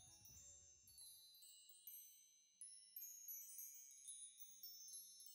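Faint high chimes tinkling, many overlapping ringing notes struck at irregular moments, while the lower part of the background music dies away in the first second.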